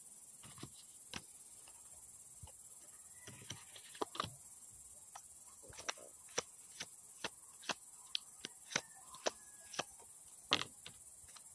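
Tarot cards being shuffled by hand: a run of short, sharp card clicks and snaps at irregular intervals, coming more often in the second half, the loudest about ten and a half seconds in.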